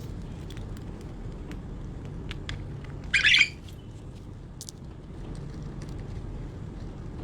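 Budgerigars pecking at food, a scatter of small sharp clicks, with one loud harsh budgie squawk about three seconds in.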